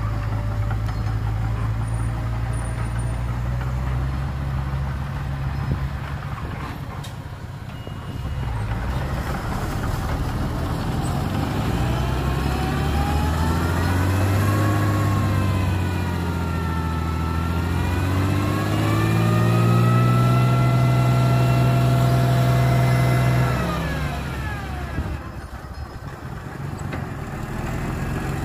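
Heavy construction-machine diesel engine running, first at a steady low speed, then revving up and down from about halfway through. It holds at high revs for a few seconds, then drops back near the end.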